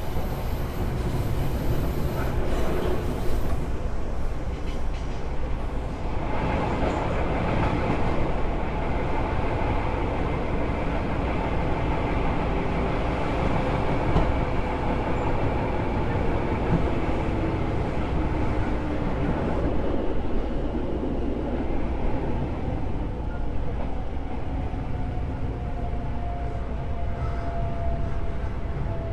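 Seibu 2000 series electric train running, heard from inside the passenger car: a steady rumble of wheels and running gear. In the second half, a motor whine slides slowly down in pitch as the train slows.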